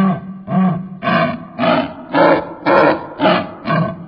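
Laughing kookaburra calling: a rhythmic series of loud, rough notes, about two a second.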